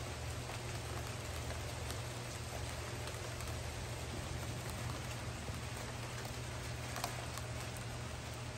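Steady rain falling: an even hiss with scattered sharp taps of drops landing close by, one louder tap about seven seconds in. A steady low hum runs underneath.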